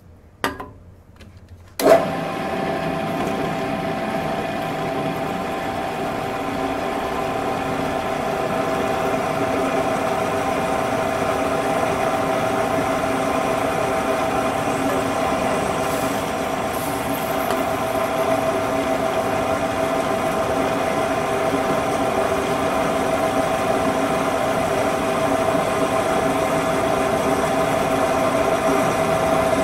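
Drill press switched on about two seconds in, its motor then running with a steady hum while the bit is fed into a metal part clamped in a drill press vise.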